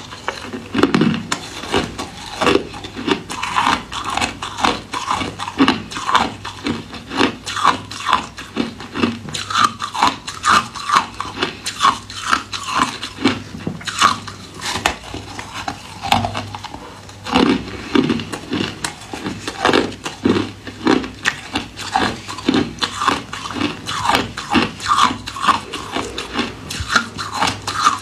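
A person chewing and crunching ice close to the microphone: a steady run of crunches, about two or three a second, with a brief lull around the middle.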